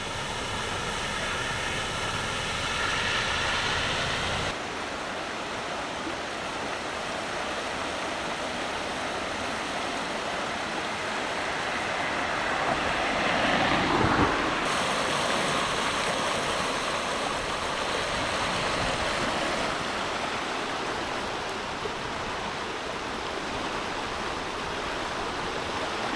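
Floodwater rushing: first a car splashing through a flooded street, then the steady rush of a swollen, overflowing creek, which swells louder about halfway through.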